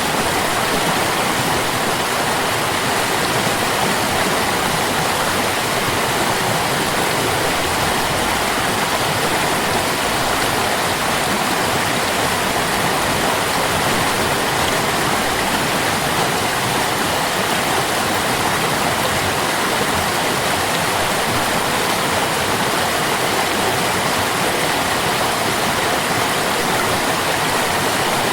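Flowing stream water: a steady, unbroken rushing babble with no pauses or separate splashes.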